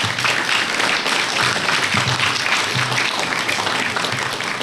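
Audience applauding, a dense clapping that holds at an even level.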